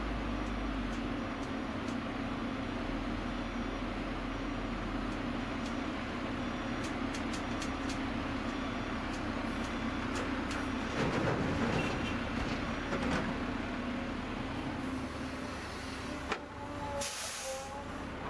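Volvo EC210BL excavator's diesel engine and hydraulics running steadily while it loads a quad-axle dump truck; a loud rush of clay pouring from the bucket into the steel truck bed about eleven seconds in. Near the end, a click and then a short, sharp hiss of air.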